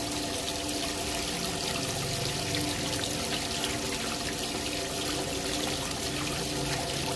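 Water gushing steadily out of a water tank's drain pipe and splashing onto wet concrete as the tank is drained.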